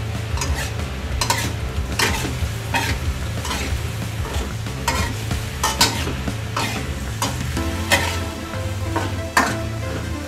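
Metal spatula scraping and tossing pineapple chunks and pork around a metal wok, a sharp scrape every second or less, over the steady sizzle of stir-frying.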